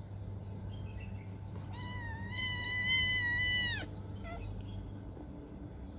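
A kitten gives one drawn-out, high meow of about two seconds during rough play-fighting, holding a steady pitch before breaking off sharply. A few faint short squeaks come before and after it.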